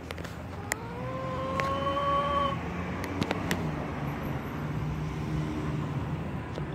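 Steady low rumble of road traffic. About a second in, a drawn-out tone rises slightly for nearly two seconds, and a few sharp clicks sound in the first half.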